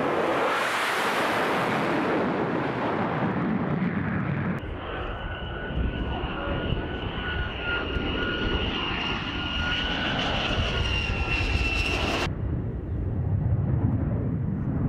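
F-35C fighter jet's single turbofan engine: a loud rushing roar, then from about four and a half seconds in a steady high whine over the engine rumble, changing abruptly to a deeper rumble about twelve seconds in as the jet lifts off.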